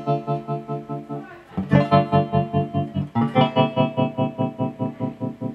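Electric guitar chords played through a tremolo pedal, the sound chopped into rapid, even pulses about seven times a second. A new chord is struck about one and a half seconds in and again about three seconds in.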